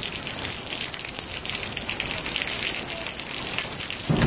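Rain falling onto wet pavement and standing puddles: a steady hiss.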